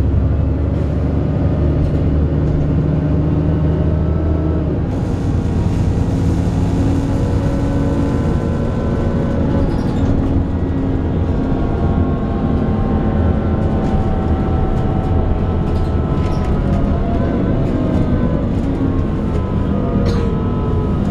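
Alexander Dennis Enviro 400 double-decker bus on a Trident 2 chassis under way: a steady low engine rumble, with several whining tones that rise slowly in pitch as it gathers speed. The bus is known for a groaning noise.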